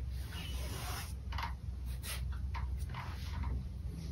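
Paintbrush loaded with acrylic paint making short, repeated brushing scrapes, roughly one every half second, over a low steady hum.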